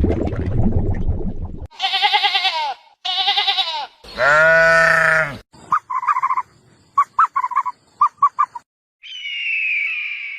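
A series of different animal calls, one after another with short gaps: a low noisy sound that stops after about a second and a half, two short wavering calls and a longer, stronger one, then a quick run of short clipped notes, and a harsher falling call near the end.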